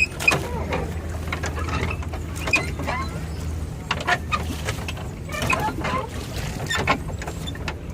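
Mechanical creaking, clicking and knocking of a small rental boat's propulsion gear as it is worked, irregular clicks throughout, over a low steady hum that fades about halfway through.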